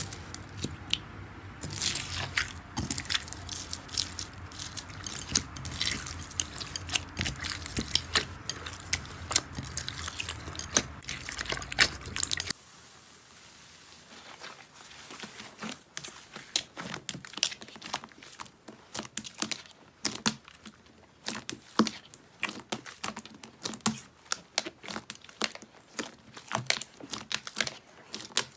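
Slime worked by hand, giving dense, irregular crackling clicks and wet pops. About twelve seconds in there is a sudden cut to a quieter clip of the same kind of crackling.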